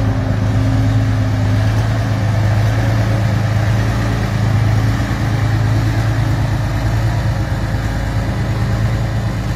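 Soviet T-34 tank's V12 diesel engine, fitted in a giant custom motorcycle, running steadily at low revs with an even, deep note.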